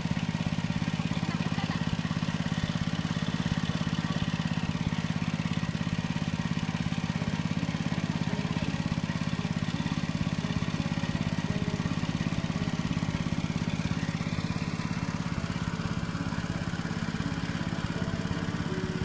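A small engine running steadily at constant speed, a low, even drone with a fast pulse.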